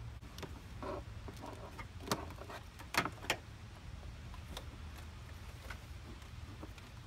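Scattered light clicks and taps of hands working a wiring-harness terminal at a vehicle battery, a handful spread over several seconds, over a steady low hum.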